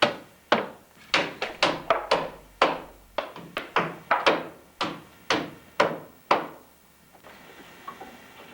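A rapid, uneven series of hard knocks or thunks, about twenty blows at roughly three a second, stopping abruptly about six and a half seconds in; a few faint ticks follow.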